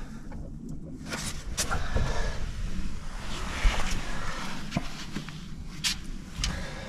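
Hand-working noises as a small rubber fuel hose is pushed onto a fitting on the fuel water separator: rustling and rubbing with a few sharp clicks.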